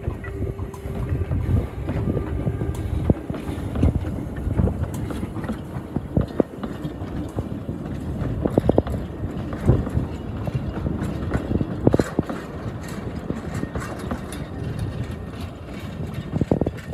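Narrow-gauge steam train passing close by: the saddle-tank locomotive works away while its wooden carriages roll past, wheels knocking irregularly over the rail joints over a steady low rumble.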